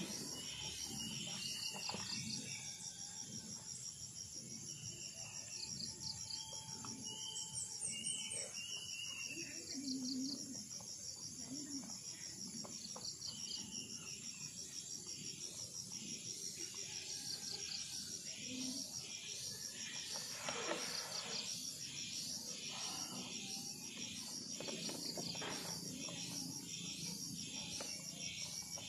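Insects chirping in a steady, rapidly pulsing high trill, with scattered short higher chirps in the first ten seconds. Underneath, puppies eating chicken from a plastic tub make faint, irregular chewing and licking sounds.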